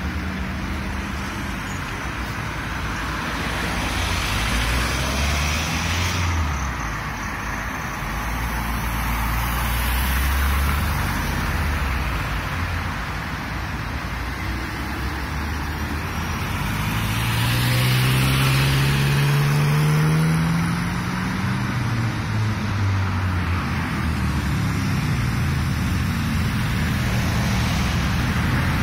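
Road traffic: car engines and tyre noise as vehicles pass close by. A little past the middle, one engine rises steadily in pitch as it accelerates, then fades.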